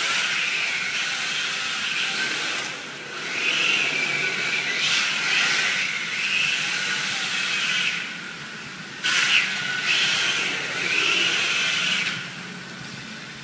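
Yokomo D-MAX 4WD electric RC drift car drifting on a hard polished floor. Its motor whine swells and drops in repeated throttle bursts that swing the tail out, with the tyres hissing as they slide. There is a sudden loud burst about nine seconds in.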